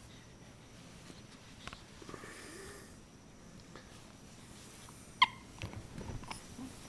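Newborn baby hiccuping: one short, sharp hic about five seconds in, with faint breathing and a few soft bumps around it.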